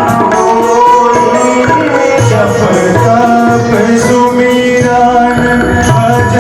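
Devotional music: a tabla beat under sustained melodic tones, with singing.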